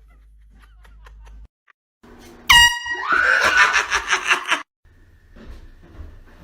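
A short, loud air horn blast about two and a half seconds in, followed at once by a person's startled yell that cuts off suddenly.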